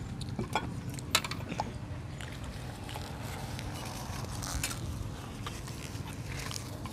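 Eating sounds at a table: metal spoons clicking now and then against ceramic plates and bowls, with chewing close to clip-on microphones.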